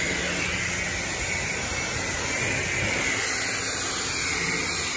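High-pressure wand of a self-serve car wash spraying soapy water onto a car's door and window: a steady hiss of the jet.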